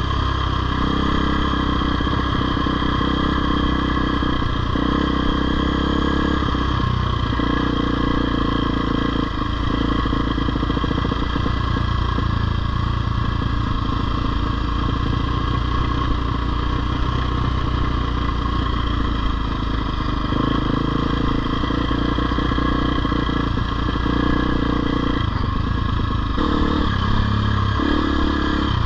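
Husqvarna FE 250 four-stroke single-cylinder dirt bike engine running while being ridden, its pitch rising and falling every few seconds with the throttle.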